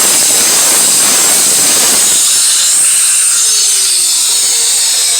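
Angle grinder with a flap disc running against a metal edge, cleaning it up: a steady, loud, high-pitched grinding. The rougher, lower grinding noise drops away about two seconds in while the grinder's high whine keeps going.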